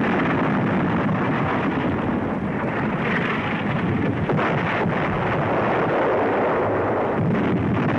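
Continuous rumble of battle, with distant artillery and explosions running together into one steady din where no single blast stands out.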